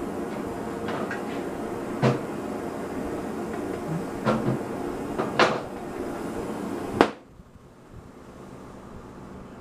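Oxy-fuel cutting torch flame burning with a steady hiss while several clunks and knocks come from the torch being handled, then a sharp pop about seven seconds in as the flame is shut off. After the pop the hiss is gone and only a low steady background remains.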